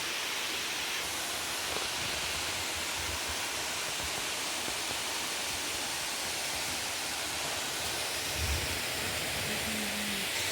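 Changey Falls waterfall pouring in a steady, even rush, its flow light with the dry-season low water. A brief low bump comes about eight and a half seconds in.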